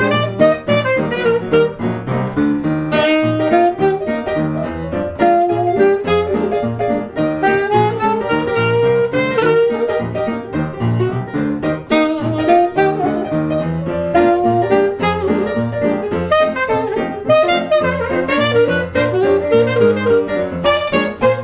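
Early jazz duet of saxophone and upright piano: the saxophone plays a flowing melody over a steady stride-style piano accompaniment with a pulsing bass.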